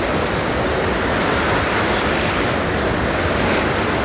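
Rhine Falls: a large waterfall's steady rushing roar of falling water, with some wind on the microphone.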